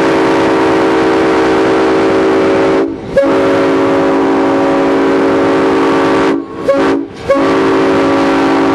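Diesel locomotive's air horn, a chord of several notes, sounding the grade-crossing signal: long, long, short, long.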